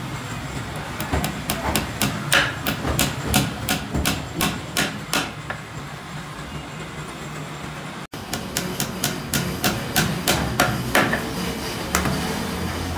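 A hammer driving steel nails into wood: two quick runs of sharp strikes, about four a second, separated by a pause of two or three seconds, then a single blow near the end.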